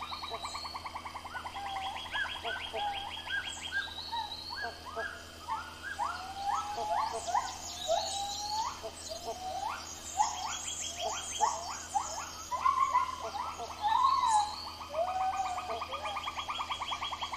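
Tropical rainforest ambience: many birds calling with short whistled and rising notes, thickest in the middle stretch, over rapid steady trilling calls at the start and end.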